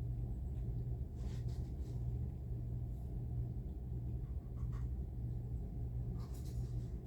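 A steady low rumble that swells and fades slightly about once a second, with a few faint scraping sounds.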